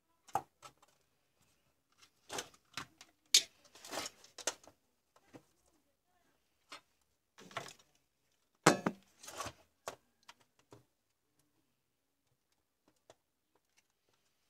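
Clicks, knocks and rustling from a plastic battery pack case and its wires being handled on a workbench, in scattered bursts with two sharper knocks, then only a few faint ticks near the end.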